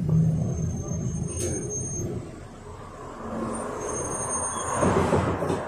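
A Yutong ZK6890HGQ city bus on the move, heard from inside: engine and road rumble that jumps up right at the start and swells again about five seconds in.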